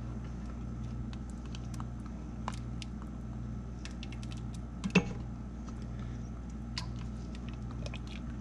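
Black plastic spoon stirring and scooping chunks of hog maw in a thick red sauce in a stainless steel Instant Pot inner pot: scattered light clicks and scrapes against the pot, with one louder knock about five seconds in, over a steady low hum.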